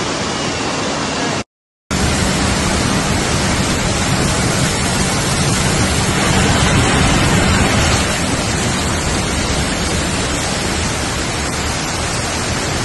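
Torrential rain and rushing floodwater: a loud, steady rush of noise, cut off briefly by a moment of silence about one and a half seconds in.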